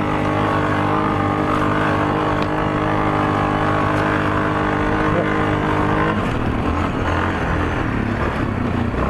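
ATV engine running at steady high revs, then about six seconds in the revs drop and the engine note turns lower and uneven as the throttle comes off.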